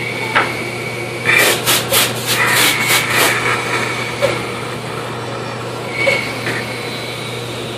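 Band saw running with a steady hum while its blade cuts through a thick wooden block, with a quick run of short rasping bursts about a second and a half in and a brief one again near six seconds.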